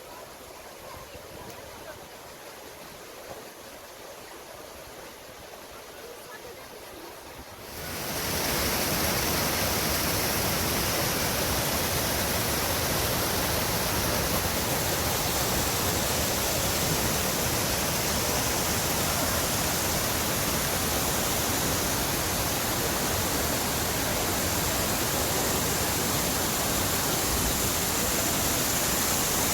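Falling water of a waterfall: a loud, steady rush that comes in sharply about eight seconds in, after a fainter stretch of background noise.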